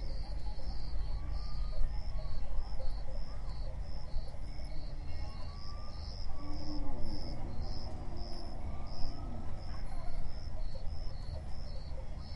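Insect chirping, most likely a cricket, in a steady high-pitched pulsing rhythm of about two chirps a second, over a low background rumble with a few faint rising and falling calls.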